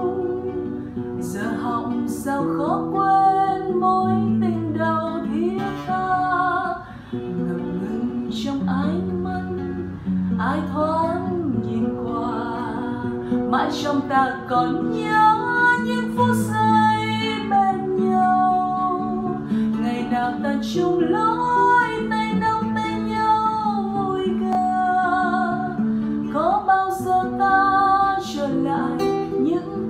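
A woman singing a song in Vietnamese while accompanying herself on a nylon-string classical guitar, playing chords under the melody.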